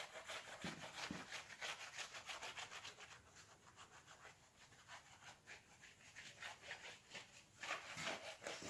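Faint, quick back-and-forth rubbing strokes, about four or five a second, like a cloth or pad scrubbing an engine part clean. They ease off through the middle and pick up again near the end.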